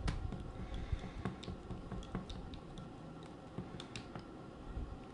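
Small screws being driven back into a netbook's screen lid with a small screwdriver, with plastic parts being handled: scattered, irregular light clicks and taps.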